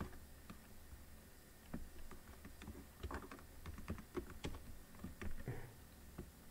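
Faint typing on a computer keyboard: irregular keystrokes in short runs with brief pauses, as a line of code is entered.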